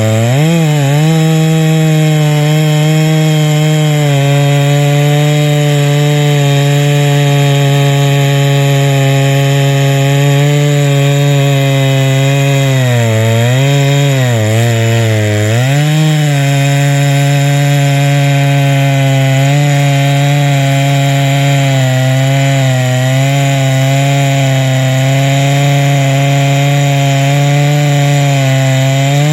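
Huztl MS660-clone two-stroke chainsaw running at high revs while cutting a milling pass through a log. Its engine note sags briefly under load about half a second in and twice in quick succession about halfway through, recovering each time.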